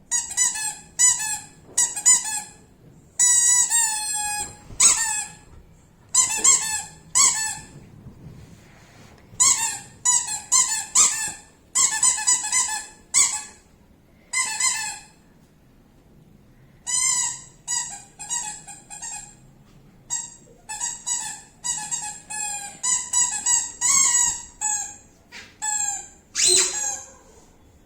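Squeaky dog toy squeaked over and over in quick clusters of short squeaks with brief pauses between; a few squeaks slide down in pitch.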